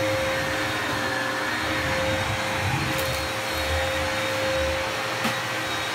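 Upright vacuum cleaner running steadily, a constant pitched hum over the rush of air.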